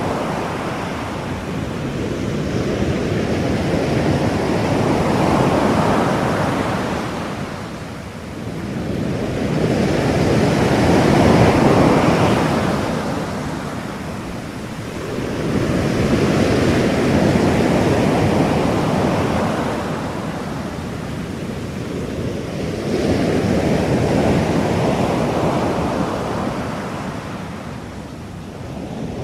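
Ocean surf: waves washing in and drawing back, the sound swelling and ebbing about every six seconds.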